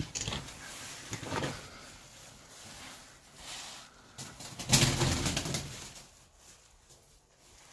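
Pigeons cooing in a rock cave, with a loud rustling burst about five seconds in.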